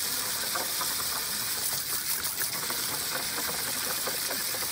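Steady hiss of water spraying from a children's water table, with small splashes as a dog bites at the jet.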